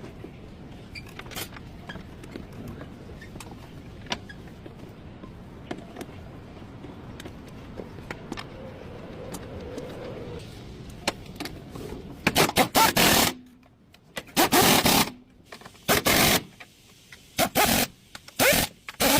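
Quiet background with a few scattered clicks, then, about twelve seconds in, loud irregular scraping and rubbing noises in repeated bursts, typical of hand-tool work on a car.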